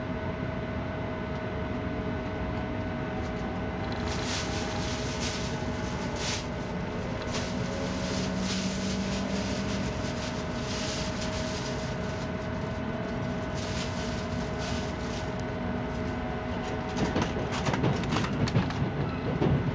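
Tohoku Shinkansen train running along the platform, heard from a seat inside the carriage: a steady low rumble with a faint held tone, irregular hissing from about four seconds in, and a cluster of clicks and knocks near the end.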